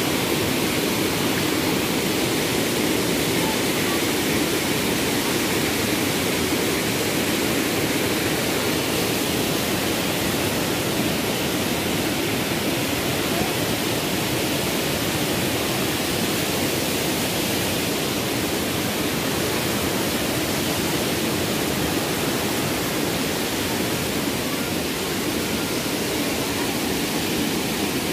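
Waterfall rushing steadily: an even, unbroken wash of water noise.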